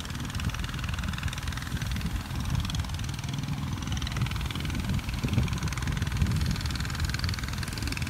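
Sea wind buffeting the microphone in an uneven low rumble over a steady hiss.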